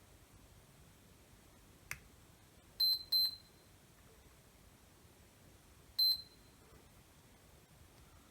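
Digital multimeter beeping: two short high beeps close together, then a third a few seconds later, with a faint click just before, as the test probes are put on the MOSFETs to check for shorts.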